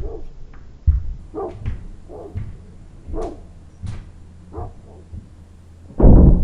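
A dog barking, short single barks about once every second or less, with the loudest bark near the end.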